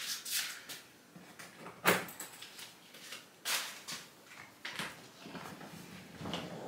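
A few scattered knocks and rustles of someone moving about a room and handling things, the sharpest about two seconds in.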